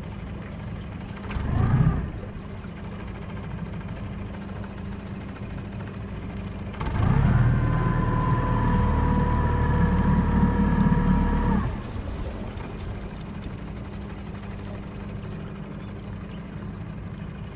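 Small boat's motor running with a steady low hum. About seven seconds in it is throttled up for roughly five seconds, giving a louder drone with a steady whine, then it drops back suddenly. A brief louder noise comes near two seconds in.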